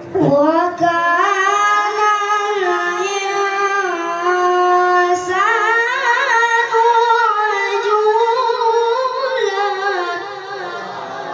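An unaccompanied solo voice chanting one long melodic phrase, holding notes and ornamenting them with quick turns. It comes in suddenly and eases off near the end.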